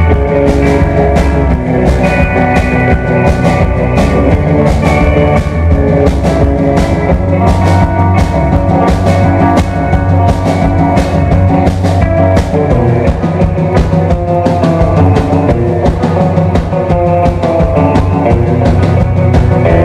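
Live rock band playing an instrumental: electric guitar and a second stringed instrument over a drum kit keeping a steady beat of about two hits a second.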